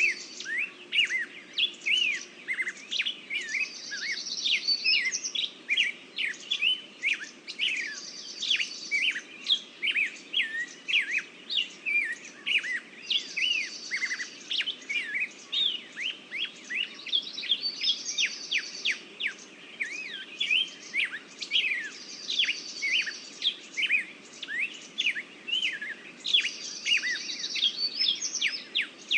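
Chorus of songbirds chirping and twittering, many short calls overlapping, with a higher trill that comes back about every four to five seconds.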